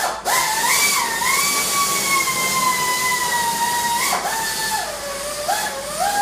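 Power tool running continuously over a strong hiss, backing out one of the last door bolts. Its whine sags and recovers as it works, dropping lower about four seconds in before picking up again.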